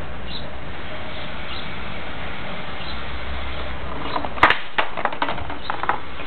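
Steady background hiss and low hum from the recording, then, about four seconds in, a sharp knock followed by several quick scrapes and clicks of the camera being handled close to the microphone.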